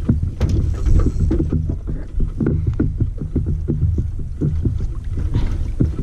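Water knocking and slapping against the hull of a bass boat, over a steady low rumble, with many irregular short knocks.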